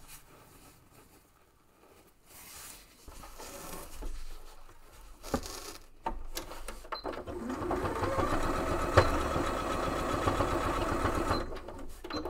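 Electric sewing machine stitching through a padded, quilted fabric panel. It starts about six seconds in and runs steadily for about five seconds, tacking a pocket corner down with back stitching to reinforce it. Before that there is soft rustling as the fabric is moved into place.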